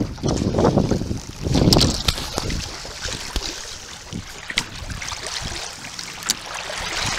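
Water rushing and splashing along the hull of a sailing canoe under way, with heavy gusts of wind on the microphone in the first couple of seconds, then a steadier wash with a few small slaps.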